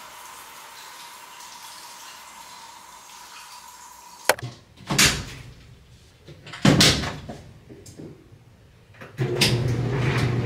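Laundry machine door and laundry being handled: a sharp click about four seconds in, then a few loud knocks and thuds. Before the click a faint steady hiss with a thin whine; near the end a steady low hum starts.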